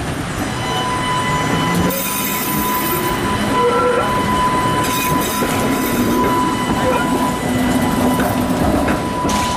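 Rail vehicle running along the track, its wheels squealing over a continuous rumble and clatter.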